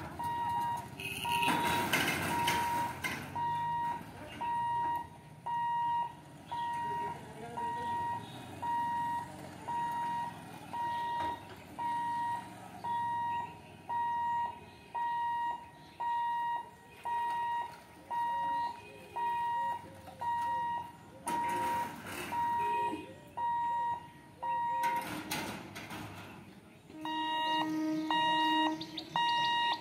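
Level-crossing warning alarm beeping, one tone about once a second, a warning that the gate is closing for a train. Near the end a different, faster warning beep with several pitches takes over.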